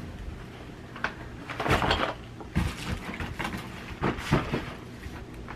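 Household items being handled and dropped into a bin: rustling and light knocks, in a few short spells.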